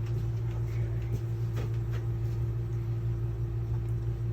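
Steady low machine hum with a constant faint tone above it, and a few faint ticks and taps.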